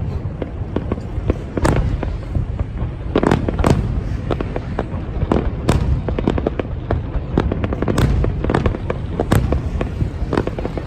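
Fireworks display: a continuous run of aerial shell bursts, with sharp bangs coming irregularly, several a second at times, over a steady low rumble of more distant explosions.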